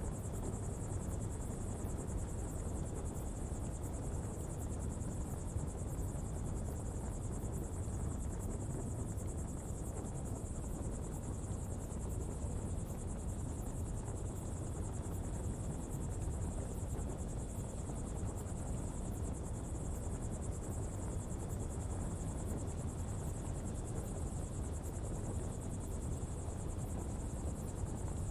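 Coal pottery fire burning with a steady low rumble, under a constant high-pitched insect drone.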